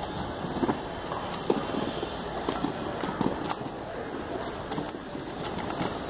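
Roller skate wheels rolling on a hard surface: a steady rumble with scattered clicks and knocks.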